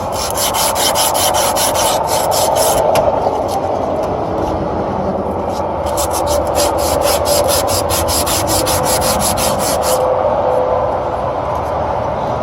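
Rapid back-and-forth rubbing strokes on copper line-set tubing as it is scrubbed clean before fitting, about three or four strokes a second. The strokes ease off a few seconds in, pick up again, and stop about ten seconds in.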